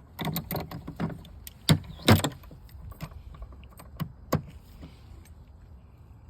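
A run of sharp clicks and knocks from small hard parts being handled, the loudest two about two seconds in and a couple more about four seconds in.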